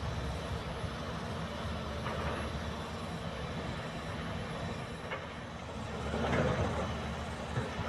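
Heavy diesel construction machinery running steadily with a low engine drone. It swells louder for about a second near the end.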